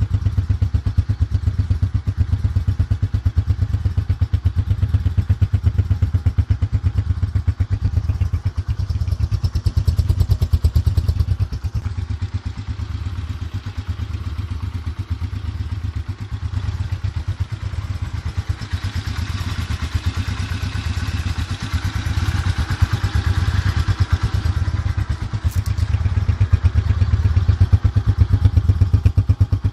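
125 cc single-cylinder four-stroke motorcycle engine idling steadily, its exhaust giving an even, rapid pulse.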